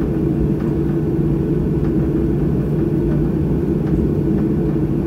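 Steady low rumble of a Boeing 737's jet engines and airframe at taxi, heard inside the passenger cabin, with a few faint light ticks.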